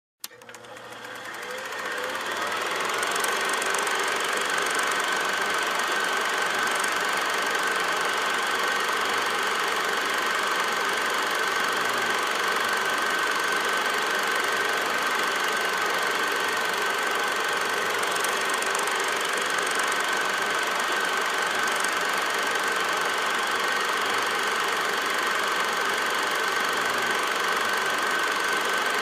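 A projector switched on with a click, its motor spinning up over about three seconds to a steady mechanical running with a constant high hum.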